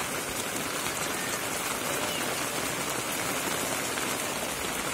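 Steady rain falling on plastic tent sheeting and a muddy lane.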